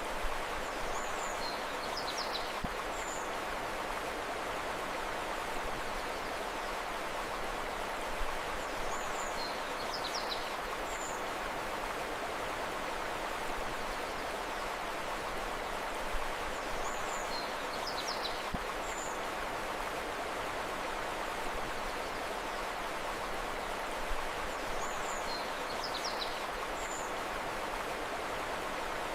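River water flowing steadily with a continuous rushing hiss. A bird's short phrase of quick high chirps comes in over it four times, the same each time, about eight seconds apart.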